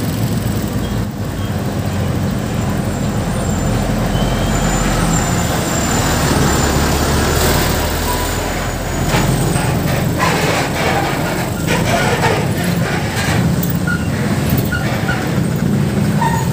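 Motorcycle running on the road amid traffic, a loud steady rush of engine and road noise, with scattered short crackles and knocks in the second half.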